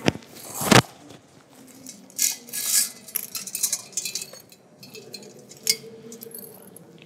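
Two loud knocks in the first second, then light clinks and clicks of small hard objects being handled.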